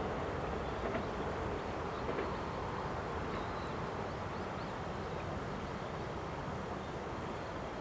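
Series 87 diesel train running away down the line, a steady rumble of engine and rail noise slowly fading with distance.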